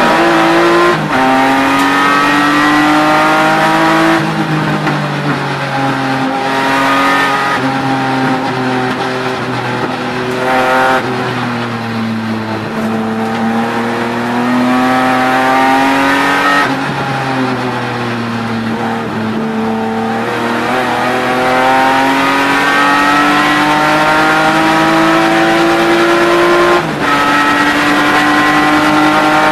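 BMW E36 race car's engine at racing speed, heard from inside the cabin. Its pitch climbs through each gear and drops at every shift, and the revs sag and waver through the corners. A long climb in the last third ends in an upshift a few seconds before the end.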